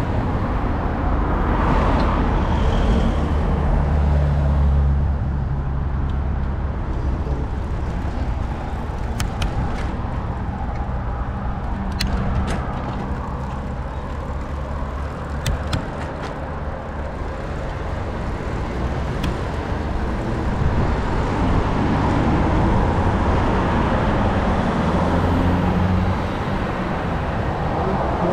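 Road traffic: cars driving past with engine rumble and tyre noise, heaviest in the first few seconds and again near the end. A few sharp clicks come in the middle.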